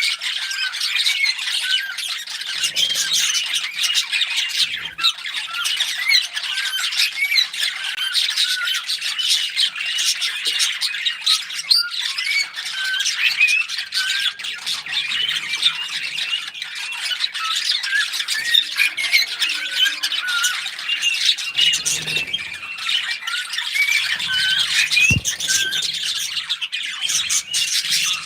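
Pet cockatiels and budgies chirping and warbling nonstop, many short overlapping calls from several birds at once.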